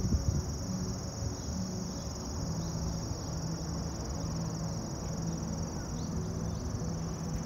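Steady, high-pitched chorus of insects shrilling without a break, over a low rumble that is strongest at the start and a faint steady low hum.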